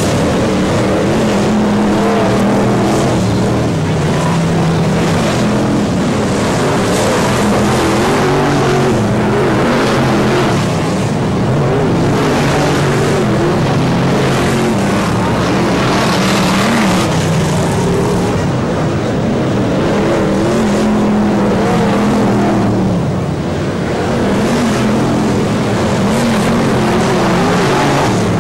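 Formula 1 stock car engines running on the track, a continuous engine sound whose pitch wavers up and down as the cars lap.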